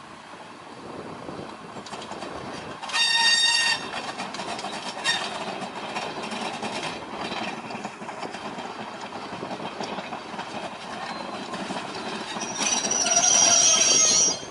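Class 101 diesel multiple unit running in slowly on its underfloor diesel engines, wheels rumbling over the track. A short horn blast comes about three seconds in, and a louder, longer shrill squeal near the end as it draws to a stand.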